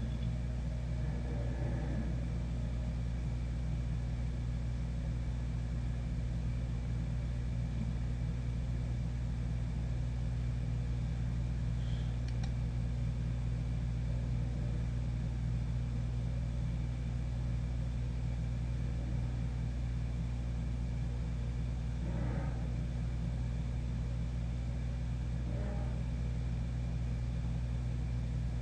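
A steady, unchanging low hum made of several constant tones, with a few faint short noises on top about 22 and 26 seconds in.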